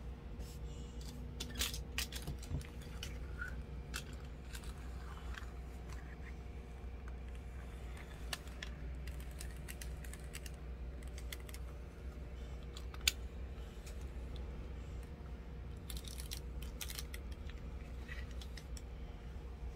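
Small die-cast toy cars being picked up, pushed and set down on a tabletop road mat: scattered light clicks and clatters, including one sharp click a little past halfway, over a steady low background hum.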